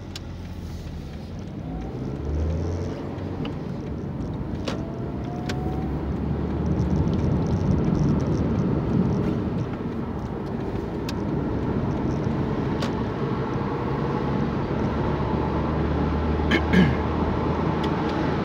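Car engine and road noise heard from inside the cabin as the car pulls away from traffic lights and drives on. It grows louder over the first several seconds as the car gets up to speed, with a few sharp clicks along the way.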